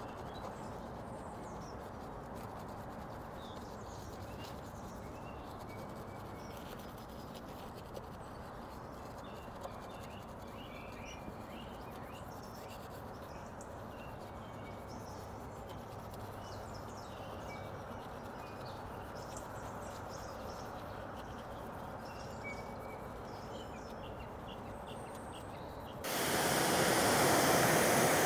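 Steady outdoor background noise with faint bird chirps. About 26 s in, a pressure washer jet starts rinsing a foamed car wheel: a sudden loud, steady hiss of spraying water that stays to the end.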